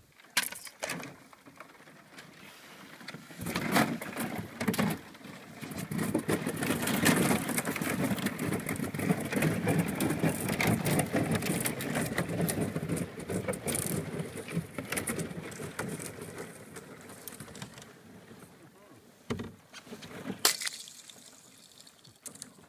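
Canoe hull breaking through thin skim ice: a dense crackling and crunching of ice against the hull, building up after a few seconds and heaviest in the middle, then thinning out. A few sharp knocks stand out near the start and twice near the end.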